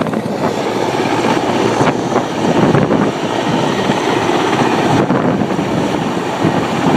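Helicopter running close by, its engine and rotor noise mixed with the rotor downwash buffeting the microphone.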